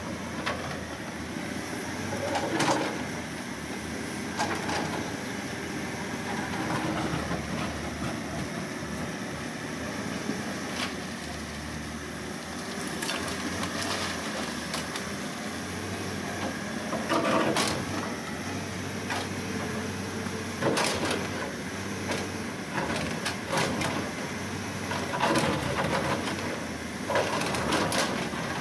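Halla 130W wheeled excavator's diesel engine running under hydraulic load while it digs and loads soil. Irregular knocks and clatters come as the bucket scrapes and dumps earth into a steel tractor trolley.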